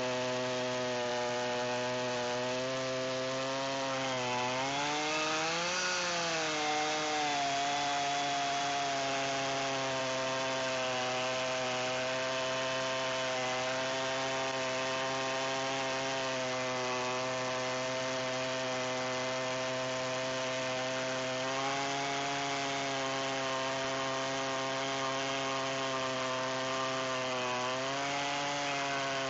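Two-stroke chainsaw running steadily under load as it rip-cuts a sweet gum log lengthwise along a milling rail. Its engine pitch dips and then rises briefly about five seconds in, and wavers again near the end.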